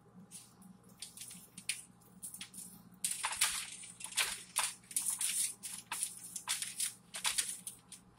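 Aluminium foil crinkling and crackling in irregular bursts as chicken pieces are handled and turned on it, sparse at first and busier from about three seconds in.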